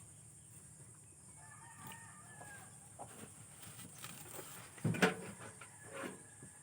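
A rooster crowing, its long drawn-out call heard twice, with a few short knocks and one loud sharp knock about five seconds in.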